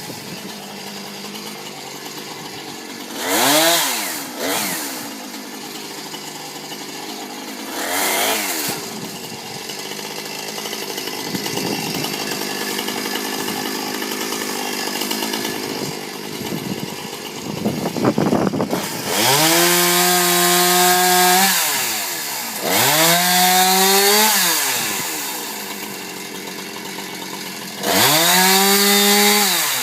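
Chainsaw idling and revving. It speeds up briefly twice, then runs at high speed in three longer stretches of a couple of seconds each, its pitch rising as it speeds up and falling back to idle in between.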